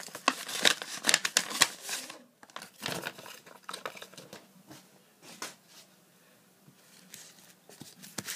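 Paper and packaging of a sticker pack being handled and torn open: sharp crinkling and ripping noises, thick in the first two seconds and then thinning out, with about two seconds of near quiet before a little more handling near the end.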